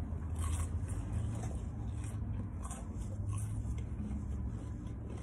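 Close-miked chewing of fried food, a few faint soft crunches and mouth sounds, over a steady low hum inside a car.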